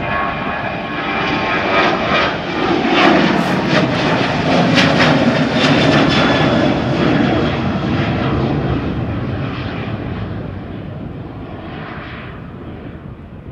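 Jet engines of a Boeing 737 airliner at take-off thrust as it climbs out overhead. The roar swells to its loudest a few seconds in, its tone sliding down as the aircraft passes, then slowly fades as it climbs away.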